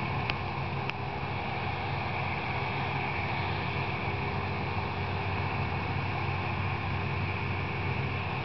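Two self-propelled bean viners running steadily while harvesting: a continuous mechanical drone of engines and threshing drums with a higher whine over it.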